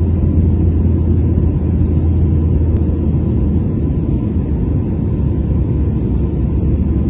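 Steady low rumble of a jet airliner's turbofan engine and rushing air, heard inside the passenger cabin, with a faint steady whine over it. The deepest part of the rumble eases slightly about halfway through.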